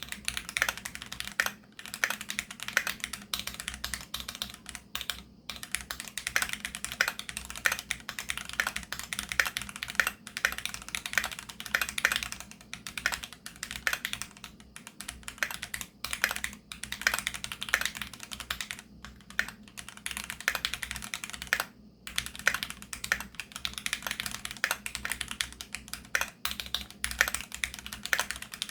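Continuous fast typing on a Keychron Q2 aluminium-cased mechanical keyboard with Gateron G Pro Brown tactile switches: a dense run of keystroke clicks and clacks, broken by a few short pauses.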